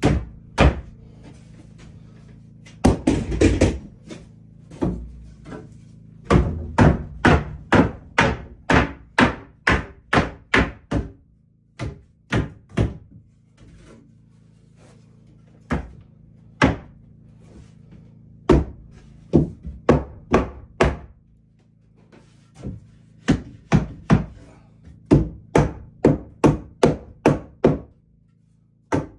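Hammer striking wood in runs of quick, evenly spaced blows, with single knocks in between: boards being nailed into place.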